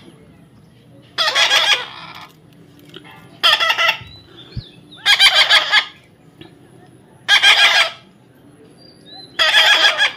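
Baby parrot squawking: five harsh, rasping calls, each about half a second long and roughly two seconds apart, given while it is being offered food, typical of a hand-fed chick's food-begging calls.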